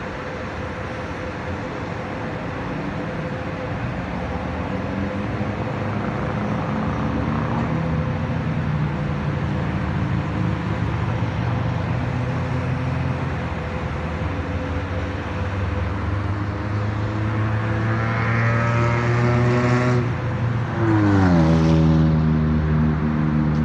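Road traffic with car engines running. Late on, one vehicle's engine climbs in pitch as it accelerates, then drops sharply as it passes close by, and settles into a steady engine note.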